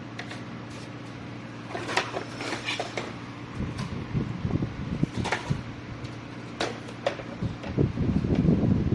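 A steady low electrical hum, with a few sharp clicks and knocks and a rougher, louder rumbling noise starting near the end.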